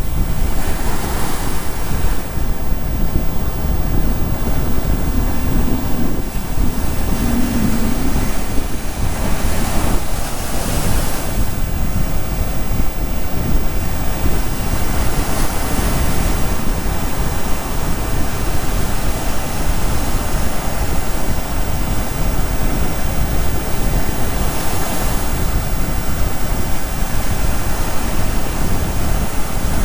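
Sea surf washing onto the beach: a steady rush of waves, with a swell of hiss every several seconds as a wave comes in. Wind rumbles on the microphone underneath.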